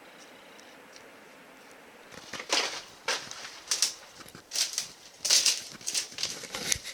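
Footsteps crunching and scuffing on loose rock, about eight irregular steps starting about two seconds in after a faint hiss.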